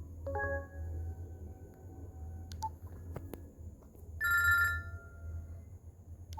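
BlackBerry Curve 9220 ringtones playing through the phone's speaker. A chime-like tone starts about a third of a second in and fades over about two seconds. A louder, brief bell-like ring follows about four seconds in, with a few clicks between them, all over a low steady hum.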